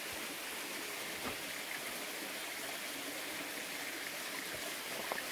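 Steady rushing of a stream running among rocks.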